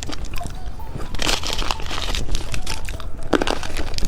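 Hard candy being crunched, with crinkling, in short bursts about a second in and again near the end: a purple foot-shaped candy eaten together with popping candy.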